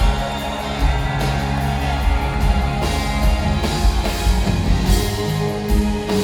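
Rock band playing live, with electric guitars over bass and drums, heard from within the crowd.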